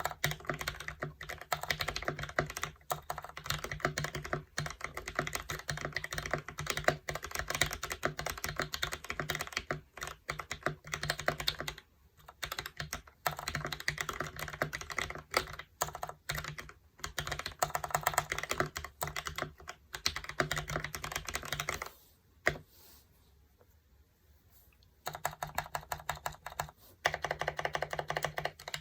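Fast, continuous typing on a Womier K66 polycarbonate hot-swap mechanical keyboard with lubed and filmed Banana Split linear switches. The typing stops a little past twenty seconds in, with one lone keystroke during the pause, and resumes about three seconds later.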